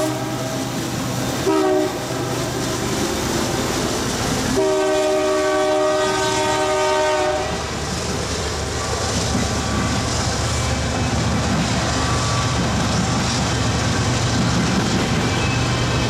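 Diesel locomotive horn sounding a chord: a short blast about a second and a half in, then a longer blast of about three seconds around five seconds in. After that, the steady rumble and clickety-clack of coal hopper cars rolling past.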